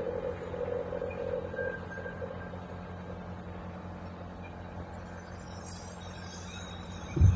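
Steady low machine hum, with background music fading out in the first two seconds and a short, loud low thump at the very end.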